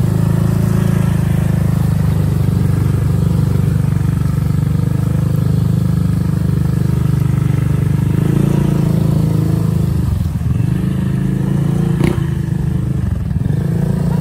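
Motorcycle engine running steadily at low speed, a constant low hum, with one sharp click about twelve seconds in.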